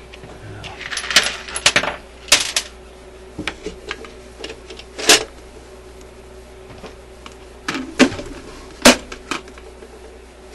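Small metal parts of a record changer mechanism and a plastic lid being handled. A flurry of clicks and clatter comes about a second in, then a few single sharp clicks follow, the loudest near the end.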